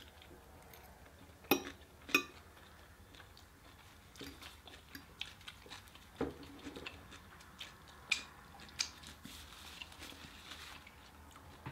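Eating sounds: chewing of takeout food, with scattered sharp clicks and taps. The loudest two come about a second and a half and two seconds in.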